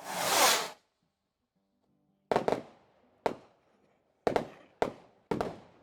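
A short noisy rush, then a series of about six sharp bangs, each with a short fading tail, like firecrackers going off.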